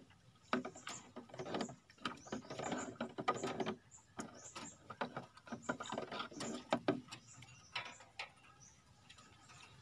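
Irregular soft rustles, taps and clicks from hands handling the medicated water jug and its container.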